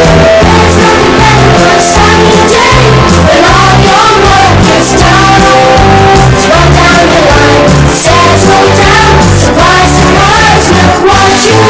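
Pop-rock song with a sung melody line, boosted so loud that it sits at full scale the whole way through, deliberately over-amplified and distorted.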